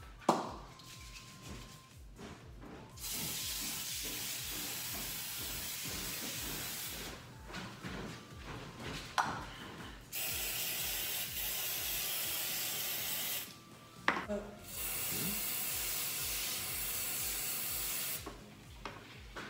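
Aerosol cooking spray hissing from the can in three long sprays of three to four seconds each, with a few sharp knocks in between.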